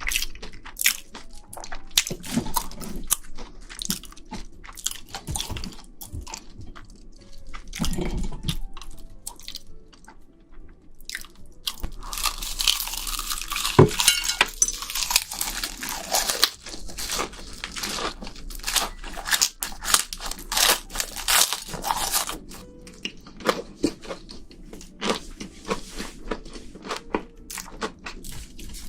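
A person crunching and chewing shrimp: many short, sharp crunches with softer chewing between, thickest through the middle.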